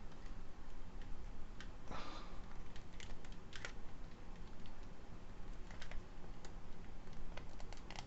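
Small plastic clicks and taps from hands fitting parts of a Raspberry Pi 4 case together, with a brief rustle about two seconds in and a sharper click at the very end.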